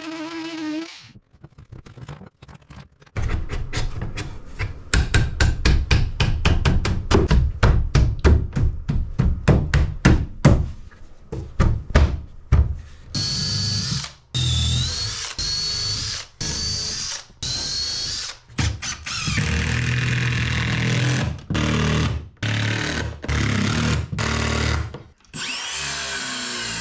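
Cordless drill run in many short trigger bursts, stuttering and whining as it drills and drives into a new sapele mahogany sill. It opens with a brief steady buzz from an oscillating multi-tool.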